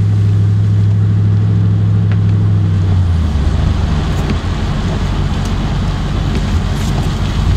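Vehicle engine and road noise heard from inside the cabin while driving: a steady low engine hum for about three seconds, then the hum drops lower and a rougher road rumble takes over.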